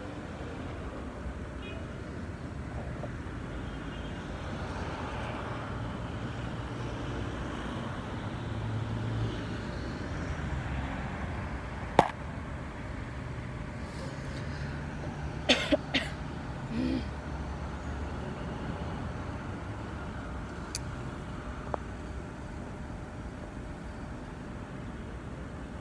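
Steady outdoor road-traffic rumble from passing vehicles, with a sharp click about halfway through and a few quick knocks a few seconds later.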